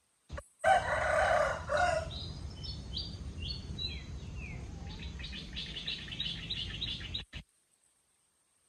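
A rooster crowing once, briefly, followed by a series of high falling chirps and then a fast run of high chirps that cuts off suddenly.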